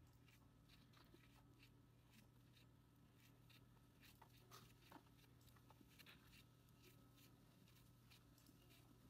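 Faint scratchy rustling and light clicks of metal tweezers packing stuffing into a crocheted yarn piece, over a low steady hum.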